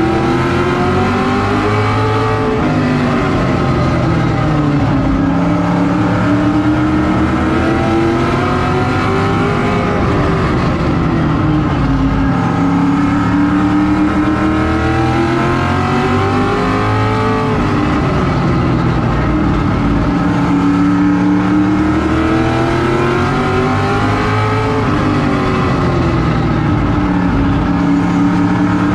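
Vintage modified race car's engine heard from inside its cockpit at racing speed, the pitch climbing and falling off in a slow cycle about every seven to eight seconds, once a lap of the short oval.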